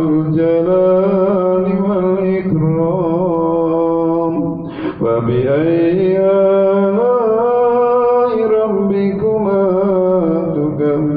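A man chanting Quran recitation in a slow melodic style, holding long, ornamented notes, with a brief pause about halfway through.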